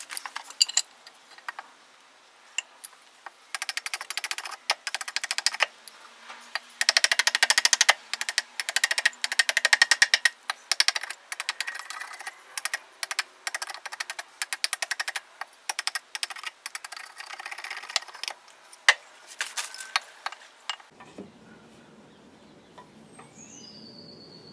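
Axe paring down a green birch stick held upright on a wooden chopping block: quick runs of sharp chopping strokes on the wood. The strokes stop about 21 seconds in, leaving a faint hum.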